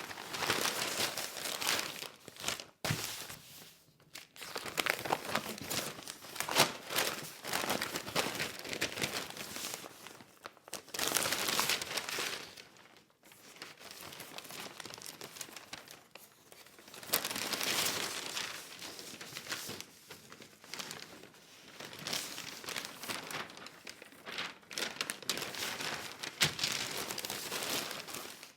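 Newspaper pages rustling and crinkling as they are handled and turned, in irregular bursts of paper noise with short pauses between them, cutting off at the end.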